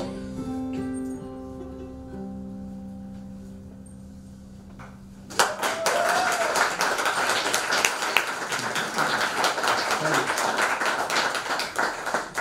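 Acoustic guitar and mandola let the song's final chord ring and fade, with a few last notes plucked. About five seconds in, audience applause breaks out suddenly and carries on.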